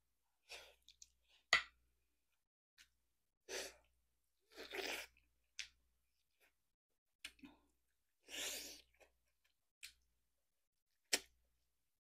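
Close-up mouth sounds of someone gnawing meat off a sauced beef rib bone: sharp wet smacks and clicks, the loudest about a second and a half in and near the end, with three longer sucking bursts between.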